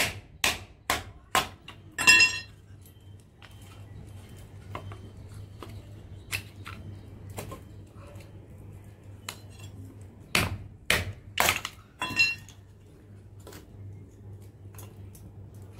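Sharp, separate knocks and clinks of a blade striking thin pieces of wood, cutting kindling: a quick run of strikes in the first two seconds or so, a few single ones after, and another quick run around ten to twelve seconds in. A low steady hum runs underneath.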